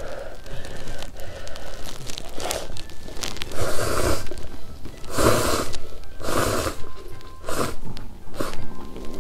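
Noodle soup slurped in sips from an instant noodle cup: five noisy slurps roughly a second apart, starting about three and a half seconds in. Soft background music underneath.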